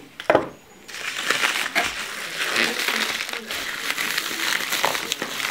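Scissors snip the Priority Mail mailer sharply near the start. Then the mailer rustles and crinkles steadily as it is handled and opened.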